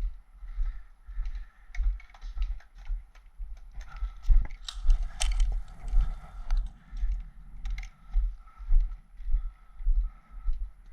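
Footsteps of a player walking, with a dull thud about twice a second and light clicking and rattling of kit, and a louder clatter of clicks about four to five seconds in.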